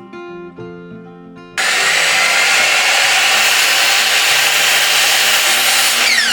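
A power tool starts abruptly about a second and a half in and runs loudly and steadily for over four seconds, then is switched off and its motor winds down with a quickly falling whine near the end. Guitar background music plays throughout.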